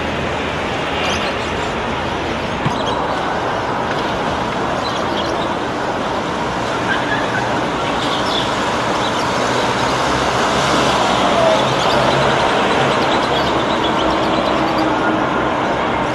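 Steady noise of street traffic, with trams and road vehicles running along the road, growing a little louder about ten seconds in.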